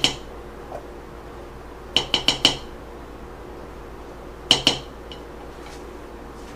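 A spatula knocked against the rim of a metal can of cheese sauce to shake the sauce out, making short, ringing metallic clinks. There is one clink at the start, a quick run of four about two seconds in, and two more about four and a half seconds in.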